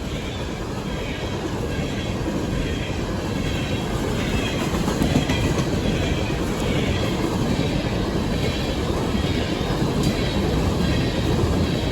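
A coal train rolling past on the rails: a steady, dense noise of cars running by that grows a little louder through the stretch.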